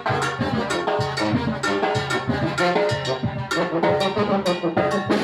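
A brass band playing a chilena, with trumpets carrying the tune over a steady drum beat.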